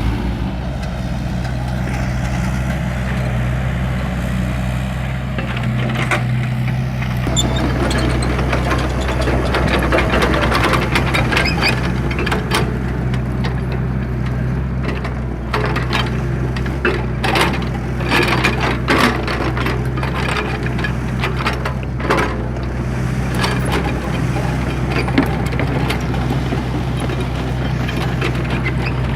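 An engine running steadily at a low, even pitch, with many short knocks and cracks over it through the middle part.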